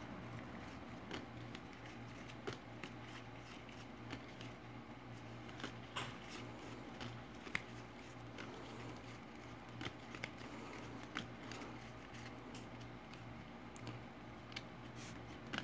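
Baseball trading cards being sorted and laid down on a table: soft, scattered clicks and taps at irregular intervals, over a faint steady low hum.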